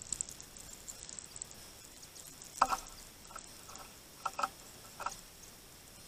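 Great tits feeding on a feeder tray: short sharp taps and pecks, the loudest pair about two and a half seconds in and a few more towards the end, with faint high ticks in the first second or so.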